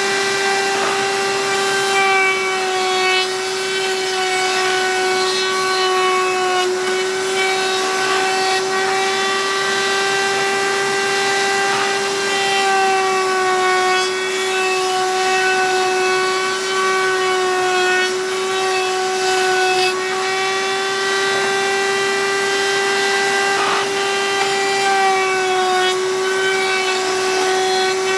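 Electric wood-cutting machine running with a steady high whine, its pitch dipping slightly now and then.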